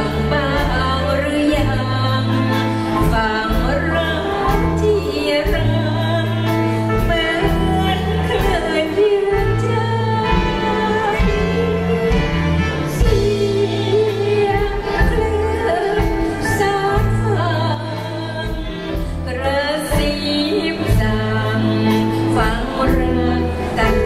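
A woman singing a Thai song into a handheld microphone, backed by a live band with bass, drums and violin.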